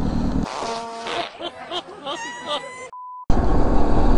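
Motorcycle riding noise cuts off suddenly and is replaced by an edited-in comedy sound effect: a jumble of warbling, chirping electronic tones ending in a short steady beep. Then the motorcycle riding noise cuts back in near the end.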